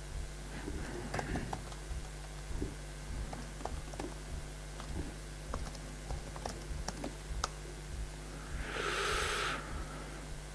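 Computer keyboard being typed on: light, irregular key clicks. About a second of hiss near the end is the loudest sound.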